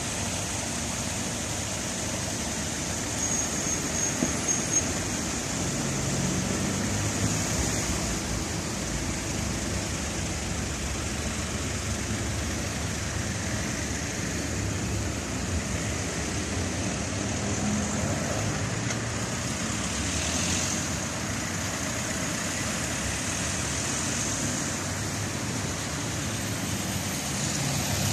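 Road traffic: small cars driving slowly around a roundabout one after another, their engines and tyres making a steady hum that swells as each car passes close.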